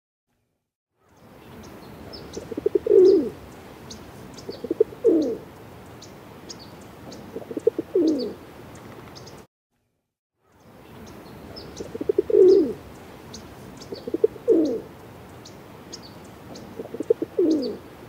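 Feral rock pigeons cooing: three low coos, each starting with a stutter and falling in pitch, a couple of seconds apart, over faint high chirps. After a second-long break the same stretch of cooing repeats.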